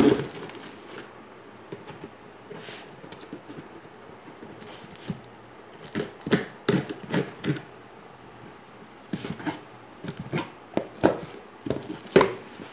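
A knife blade slitting and scraping along the packing tape of a cardboard box, in clusters of short sharp scratches and taps against the cardboard. A thump on the box at the very start.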